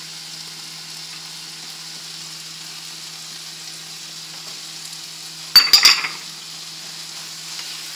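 Frying pan of vegetables and shredded chicken sizzling steadily over a gas flame. About five and a half seconds in comes a quick cluster of sharp clinks and knocks of kitchenware.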